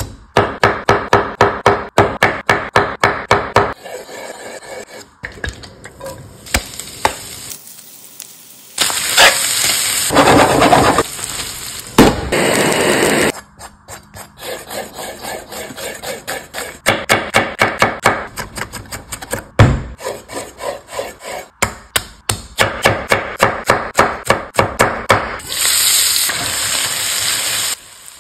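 Kitchen prep sounds: a chef's knife chopping on an end-grain wooden cutting board in quick runs of strokes, about four a second, broken by stretches of steady rustling noise. Near the end, shredded chicken sizzles in a stainless pan as it is turned with a spatula.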